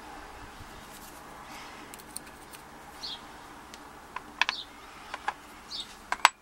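Small metal clicks and taps from handling the pins and parts of a dismantled pin-tumbler padlock. The clicks come in a scattered run in the second half, the loudest just before the end. A bird chirps briefly a few times in the background.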